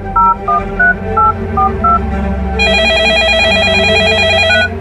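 Telephone keypad tones: six short two-tone beeps as a number is dialed, then about two seconds of a warbling phone ring, with one more short beep near the end.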